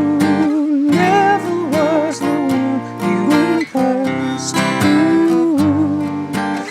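Acoustic guitar played in a steady rhythm of strokes under a man's sung melody, with long held notes that waver in pitch.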